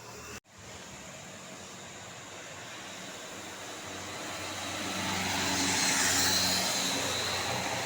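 Road vehicle approaching and passing close by: tyre and engine noise swells steadily to a peak about six seconds in, then begins to ease. The audio cuts out briefly about half a second in.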